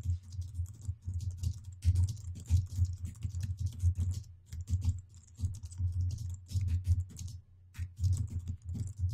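Typing on a computer keyboard: a quick, steady run of key clicks, each with a dull low thud, broken by one short pause near the end.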